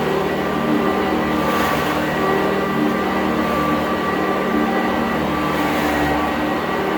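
Sanitaire SC886E commercial upright vacuum cleaner running steadily while it vacuums up scattered paper scraps.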